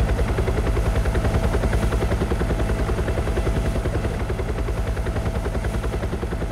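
Helicopter heard from inside the cabin at the open side door: a rapid, even beat of the rotor blades over a steady turbine whine.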